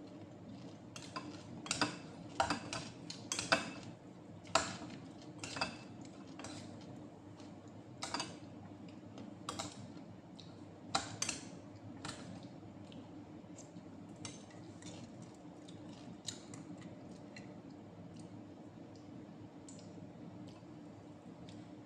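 Spoon and fingers clinking and tapping against plates and bowls while eating: irregular sharp clicks, busiest in the first twelve seconds and sparser after, over a steady low hum.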